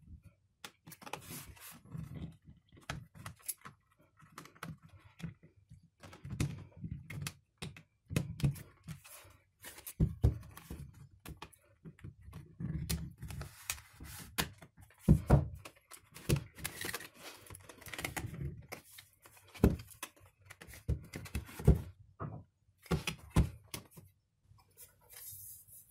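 Irregular clicks and knocks as a credit card is worked along the seam of an Alldocube M5 tablet's back cover to pry it apart, with the case being handled between them.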